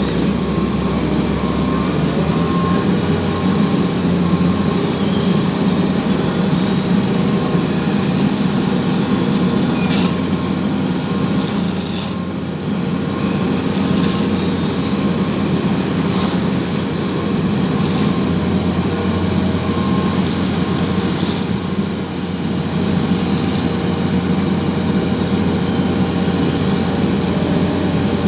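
Heavy road-repair machinery running steadily, with a few sharp knocks scattered through the middle and a faint repeated beeping.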